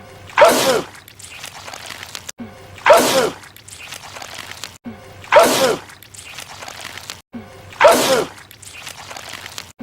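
A man's sneeze, the same sneeze repeated four times about two and a half seconds apart: each a sudden loud burst with a cry that falls in pitch, followed by quieter sound until the next.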